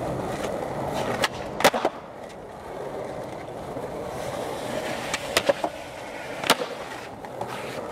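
Skateboard wheels rolling steadily over concrete, with sharp clacks of the board: two about a second and a half in, two more about five and a half seconds in, and one at about six and a half seconds.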